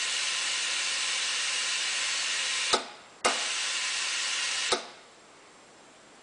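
Automatic tyre inflator venting air from a tyre as it brings the pressure down to its set value. A steady hiss cuts off with a click about two and a half seconds in and restarts with another click half a second later. It stops for good with a click about three-quarters of the way through.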